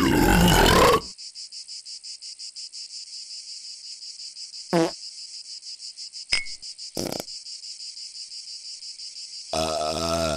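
A steady, finely pulsing high-pitched insect chorus, broken by dubbed comic body noises: a loud noisy blast lasting about a second at the start, two short sounds in the middle, and a long, deep burp beginning near the end.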